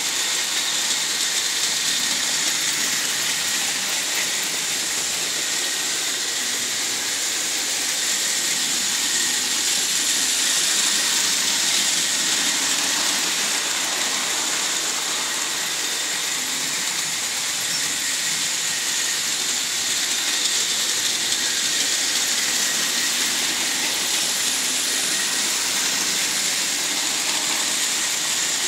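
Märklin model trains running on the layout: the steady, high whirring hiss of small locomotive motors and wheels rolling on metal track, swelling slightly about ten seconds in as a train passes close.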